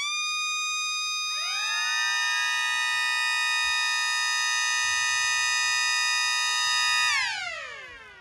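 Connor Cruz mini sirens spinning up: one rises quickly to a steady tone, and more join about a second in at slightly lower pitches. They hold a steady chord together, then wind down together near the end, the pitch gliding downward.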